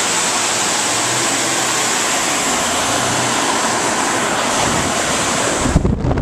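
Steady, loud rushing noise, with a few low thumps near the end.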